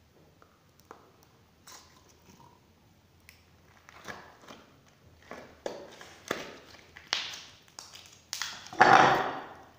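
Fluffy slime being squeezed, pinched and stretched by hand: a run of sticky clicks and pops that get louder and closer together, with a longer, loud squelch near the end.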